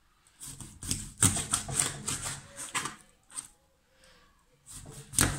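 A kitchen knife cutting through a fish's backbone on a plastic cutting board: a run of short, sharp crunching and scraping strokes, then a pause and a louder sharp sound near the end.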